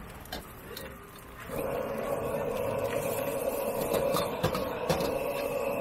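Fried rice stir-frying in a steel wok over a gas burner: a metal ladle clicks and scrapes against the wok, and about a second and a half in a steady rush of frying starts and holds.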